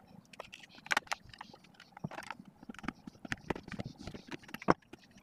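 Irregular clicks and knocks of plastic parts being handled and set down, with a sharp knock near the end.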